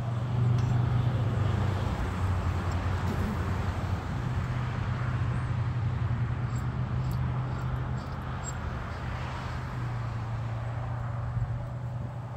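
Steady low hum of an idling engine, with a few faint metal clicks from the smoker door's latch handle being worked about halfway through.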